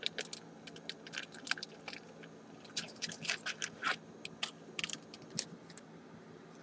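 Trading card being handled close to the microphone: a run of light clicks, crinkles and scrapes, bunched about a second in and again from about three to five and a half seconds in.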